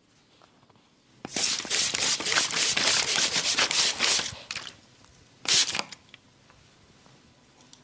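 A massage barber's hands rubbing fast and hard: a scratchy friction sound made of quick strokes, lasting about three seconds, then a second short burst.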